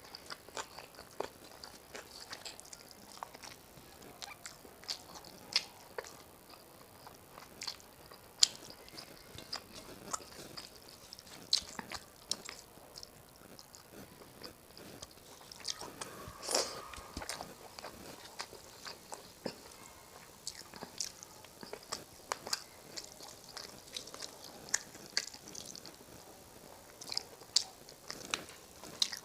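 Close-up eating sounds of a person chewing mouthfuls of rice and fish curry: irregular wet mouth clicks and smacks, with a busier spell of chewing about halfway through.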